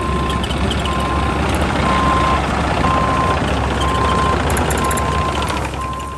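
Small rented mini excavator's engine running while its travel alarm beeps steadily, about one beep a second.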